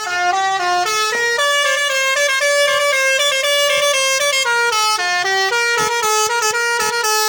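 Bus basuri telolet horn, a multi-note musical air horn, playing a tune that steps between pitches, breaking into quick short blasts near the end.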